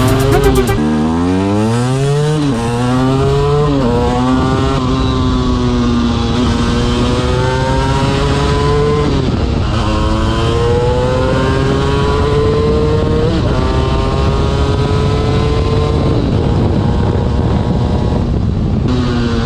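KTM EXC 250 single-cylinder two-stroke engine pulling hard under acceleration. Its pitch climbs and drops back sharply at each gear change, several times in quick succession early on, then rises more slowly through a longer pull.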